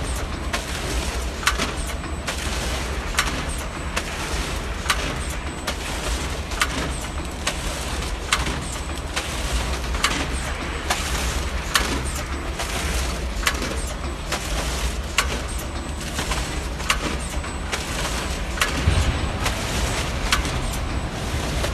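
Packing machine running over a steady low hum, with a sharp clack about every 1.7 seconds as it cycles and lighter clicks between.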